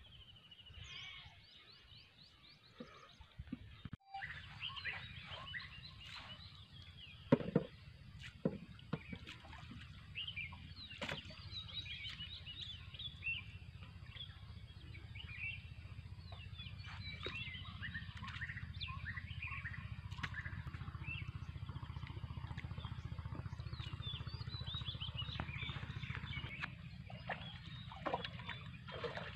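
Many small birds chirping and singing, over a steady low rumble of outdoor background noise. A few sharp knocks stand out, the loudest about seven seconds in.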